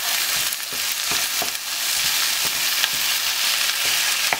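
Ground beef sizzling on onions and garlic in a hot oiled non-stick pan while a wooden spoon breaks it up, with a few short taps and scrapes of the spoon against the pan.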